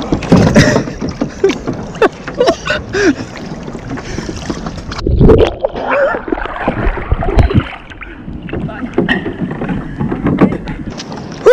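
Water sloshing and splashing against the hull of an outrigger canoe as a swimmer hauls herself back aboard, with short knocks on the hull. The loudest surge comes about five seconds in.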